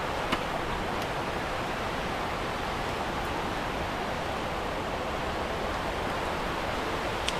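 Steady rushing of water pouring over a small waterfall or weir, with a faint click just after the start and another near the end.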